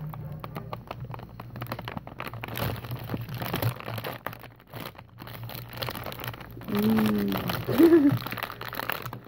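Plastic wrapper of an Oreo cookie pack being peeled open and handled, crinkling and crackling in irregular bursts. A short pitched sound stands out about seven to eight seconds in.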